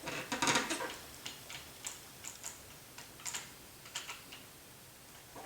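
Scattered small clicks and taps of hand tools and small parts being handled during RC helicopter assembly: a busy cluster in the first second, then single ticks spaced out.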